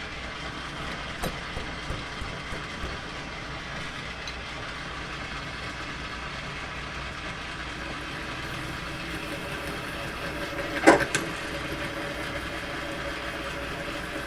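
Metal lathe running at reduced speed while a 31/64 in twist drill bores into hard material: a steady machine hum with a few light clicks early on and one sharp, loud cutting sound about eleven seconds in.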